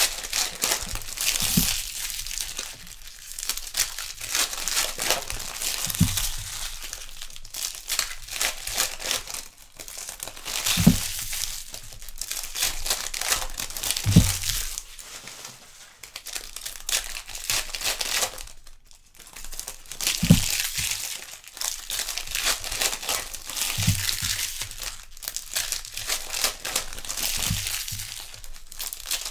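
Crinkling and tearing of 2021 Donruss baseball card-pack wrappers as packs are opened and the cards handled, with a short low thump every few seconds.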